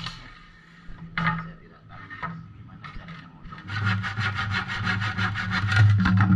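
A hand saw cutting through a length of wood: a few short scraping sounds, then from a little past halfway fast, steady back-and-forth strokes that stop abruptly at the end.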